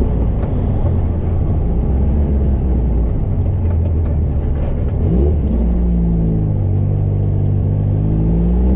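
An 1835 cc air-cooled VW Beetle flat-four engine and road rumble inside the cabin as the car slows. About five seconds in, the engine note rises sharply, then pulls steadily in a lower gear, its pitch climbing again near the end as the car speeds up.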